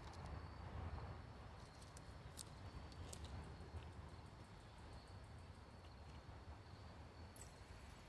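Very quiet outdoor ambience: a faint low rumble under a thin, steady, high-pitched insect drone, with a few small clicks.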